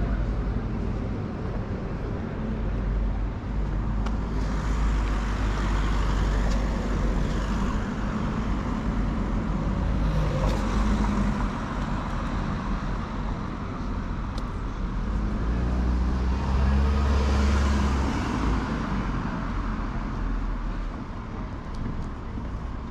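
City street traffic: cars passing one after another over a steady low rumble, the sound swelling and fading about three times.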